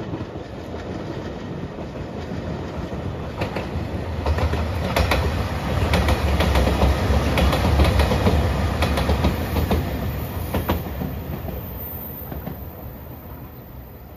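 JR Shikoku 2700 series diesel limited express passing close by. Its engines rumble low and its wheels click over the rail joints. The sound builds to a peak about halfway through, then fades as the train moves away.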